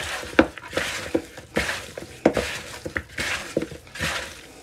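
Gloved hands rubbing seasoning into raw chicken wings in a plastic bowl: irregular squishing and rubbing with many small knocks and taps against the bowl.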